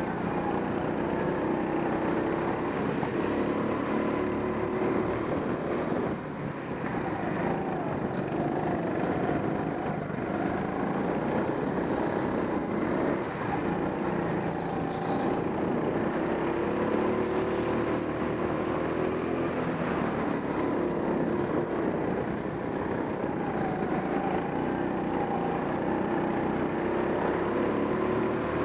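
Racing go-kart engine heard from onboard, running hard with its pitch rising and falling as the kart accelerates and lifts through the corners of the track.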